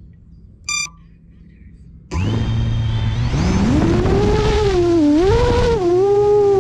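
Short electronic beep, then a 7-inch FPV quadcopter's four brushless motors (XING 2806.5 1300KV with three-blade 7-inch props) start spinning about two seconds in. Their whine rises as the throttle comes up and then wavers up and down with the throttle.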